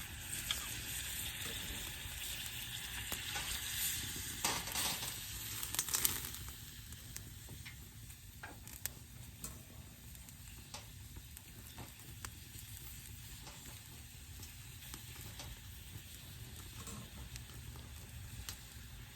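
Food sizzling as it fries over a campfire stand, louder for the first six seconds, then settling to a quieter sizzle with scattered small clicks.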